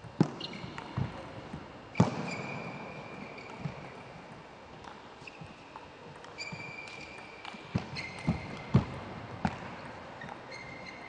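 Table tennis doubles rally: the ball clicking off bats and table at an irregular pace, with several louder hits. Short high squeaks of shoes on the court floor come a few times.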